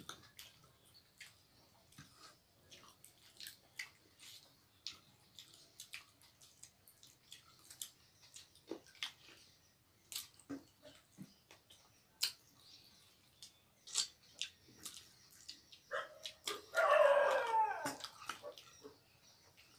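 Close eating sounds: lip smacks, chewing and fingers working rice and thin chicken curry in steel bowls, a steady string of small wet clicks and smacks. About sixteen seconds in comes a louder, wavering, whining cry lasting under two seconds, the loudest sound here.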